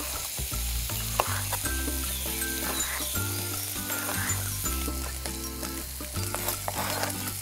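Chicken and onion frying in a hot pan with a steady sizzle, over background music with held bass notes. A few short knife strokes through a red bell pepper on a cutting board.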